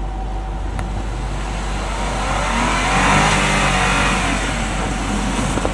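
Land Rover LR4's engine revving under load as the SUV climbs a steep, rutted sand slope; the engine note rises to its loudest about three seconds in, then eases back.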